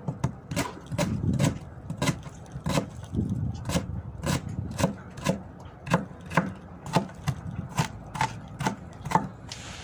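A kitchen knife chopping onions and tomatoes on a board, in a steady run of sharp knocks at about three strokes a second.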